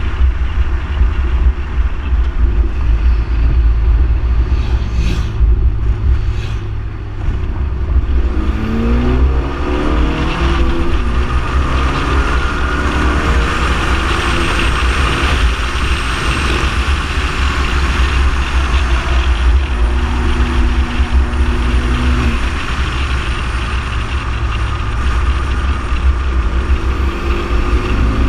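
Ford Focus ST being driven at speed, heard from a camera mounted low on the outside of the car: a heavy, steady rumble of wind on the microphone and road roar over the engine. The engine note climbs with revs about nine seconds in and again near the end. The tyre noise grows louder and hissier in the middle, as the car crosses a grooved bridge deck.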